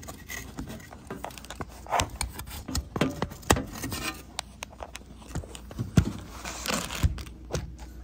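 Irregular plastic clicks and scrapes as wire-harness connectors are unplugged and a dishwasher control board is worked out of its plastic housing, with two sharper clicks near the end.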